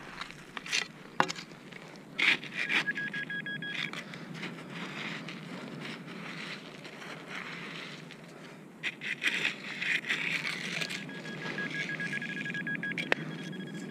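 Hand digging tool scraping through wet sand and shingle, in scratchy bursts about two seconds in and again around nine to ten seconds. A metal detector's steady high electronic tone sounds briefly about three seconds in and again from about eleven seconds on, the signal of metal in the hole.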